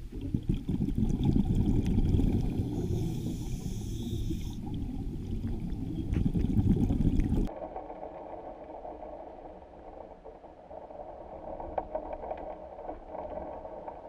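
Underwater sound picked up by the diving camera: a loud, low, noisy wash of moving water. About seven seconds in it changes abruptly to a quieter steady hiss with faint scattered ticks.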